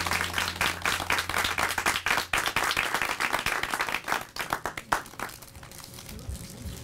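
Audience clapping and applauding, fading away about five seconds in.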